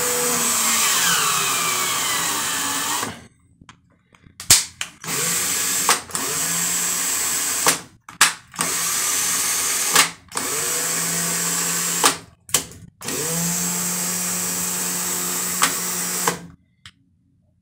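Bosch GSR 12-2 cordless drill/driver running free in about five bursts of 1.5 to 3 seconds, the motor spinning up at the start of each, with sharp clicks in the short gaps between bursts. It runs on a lithium battery pack fitted in place of its original pack.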